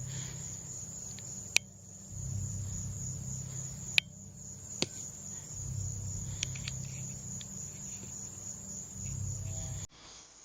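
Crickets chirring in a steady high-pitched chorus, with a low rumble coming and going underneath and a few sharp clicks. The sound cuts off abruptly near the end.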